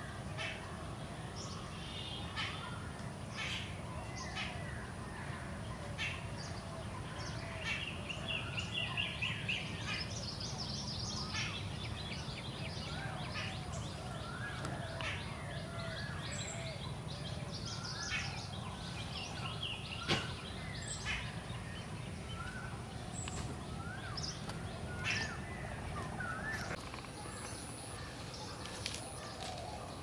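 Birds chirping and calling in many short notes, with a fast run of repeated chirps about eight to ten seconds in, over a steady low outdoor rumble. A single sharp click about twenty seconds in.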